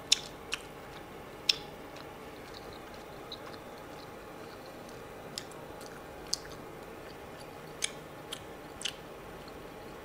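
A person chewing soft, chewy Korean rice cakes (tteokbokki) with the mouth closed. Several sharp little clicks are scattered through, the loudest near the start and about a second and a half in.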